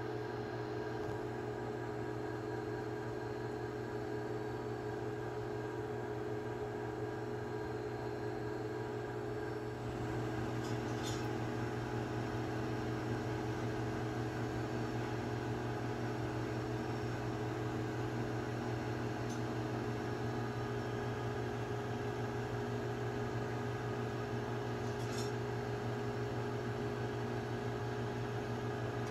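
Steady mechanical hum of a running household appliance, with several held tones, a little louder from about ten seconds in. A few faint clicks can be heard now and then.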